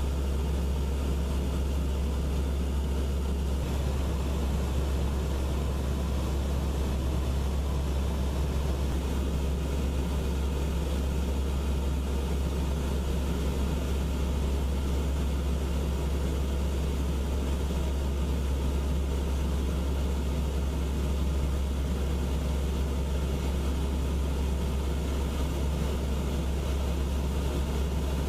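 AC-130 gunship's four turboprop engines and propellers running in a steady, unchanging low drone.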